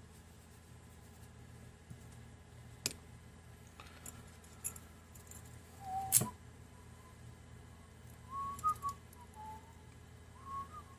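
A person softly whistling a few wavering notes in the second half, with a handful of sharp metallic clicks and taps from handling a padlock and its parts, the loudest about six seconds in.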